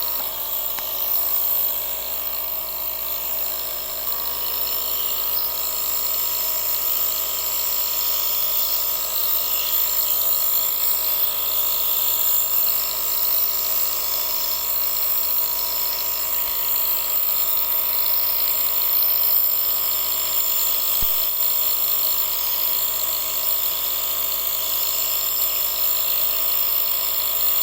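A small electric motor running steadily: a constant buzzing whine with a high hiss, unchanging throughout.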